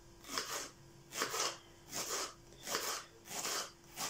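Kitchen knife slicing through a peeled onion on a wooden cutting board: about six short crunching strokes in a steady rhythm, one roughly every two-thirds of a second, cutting the onion into thin strips.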